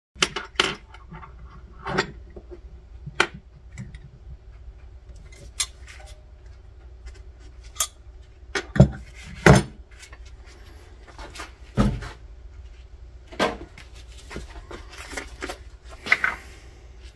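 Steel C-clamp clinking and knocking as it is handled and tightened onto a small glued aluminium casting: a dozen or so scattered sharp metal knocks, the two loudest a little past the middle, over a steady low hum.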